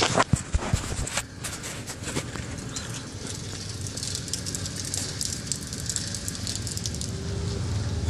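Knocks and rubbing of a handheld phone being moved in the first second, then steady outdoor background noise with light scattered clicks and a low traffic hum that grows toward the end.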